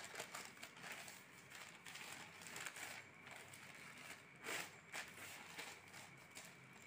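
Faint rustling of newspaper being folded and smoothed flat by hand, with a couple of louder crinkles about four and a half seconds in.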